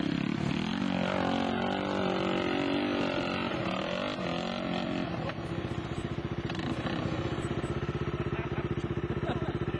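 Dirt bike engine revving under load on a steep dirt hill climb, its pitch wavering up and down, then running steadier with an even pulsing beat in the second half.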